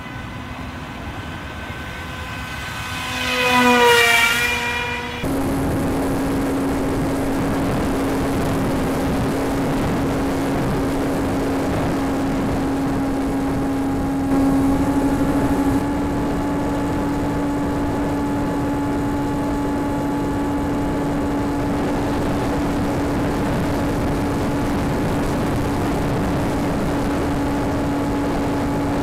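Electric motor and propeller of a foam RC jet-style plane whining as it flies past, getting louder and dropping in pitch as it goes by about four seconds in. About five seconds in the sound changes abruptly to a steady motor whine over rushing air, as heard from a camera on board the plane, briefly louder around the middle.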